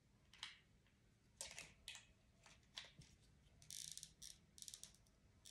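Faint, scattered clicks and rustles of small plastic parts being handled: the XP Deus II WS6 module and its audio adapter being fitted together.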